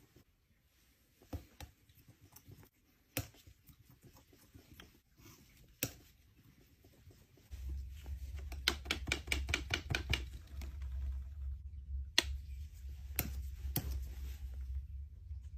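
Palette knife scraping and tapping oil paint on a palette, with scattered sharp clicks and a quick run of clicks a little past the middle. A steady low hum comes in about halfway through.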